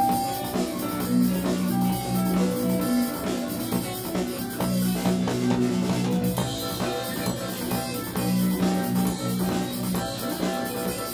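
Live band playing: guitar, keyboards, bass and drum kit together, with a steady drum beat under a bass line.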